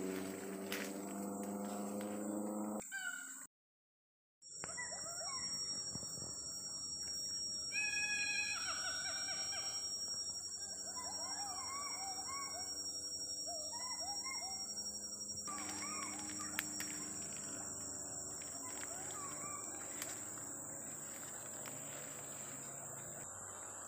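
Rainforest chorus: a steady high-pitched insect drone with many short bird chirps and calls over it, including a series of falling calls about eight seconds in. Everything cuts out for about a second near the start.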